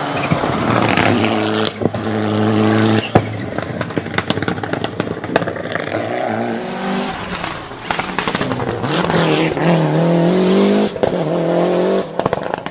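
High-performance car engine revved hard in several bursts, with sharp exhaust pops and bangs between and after the revs. The loudest bang comes about three seconds in, and a quick string of crackles comes near the end.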